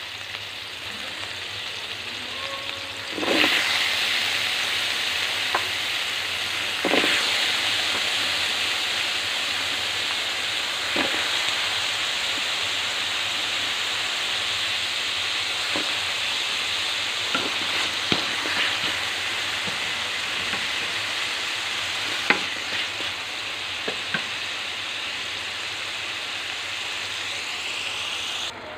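Onion, garlic and diced potato frying in hot oil in a metal pan, a steady sizzle that grows suddenly louder about three seconds in as the potatoes go in. A spatula clicks and scrapes against the pan now and then.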